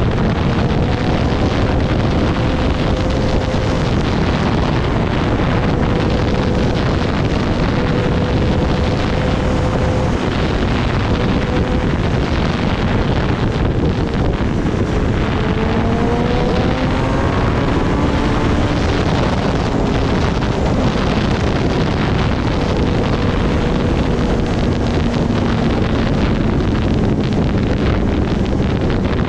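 Heavy wind noise buffeting the microphone of a riding motorcycle, with the Kawasaki Ninja ZX-10R's inline-four engine faintly under it. The engine note rises for a few seconds about halfway through as the bike accelerates.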